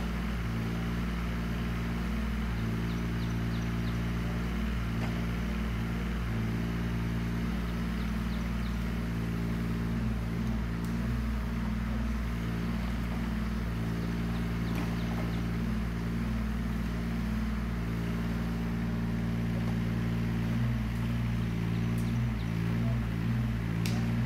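Yanmar ViO17 mini excavator's three-cylinder diesel engine running steadily at working speed, its note shifting now and then as the hydraulics take load. A few faint ticks sound near the end.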